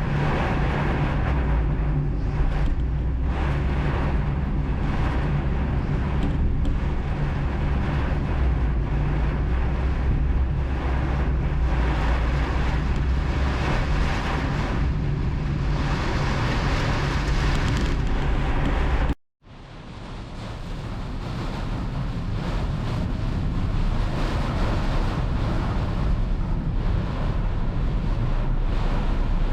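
Steady loud wash of heavy tropical downpour, with a low engine-like hum underneath. The sound cuts out abruptly about two-thirds of the way through and fades back in.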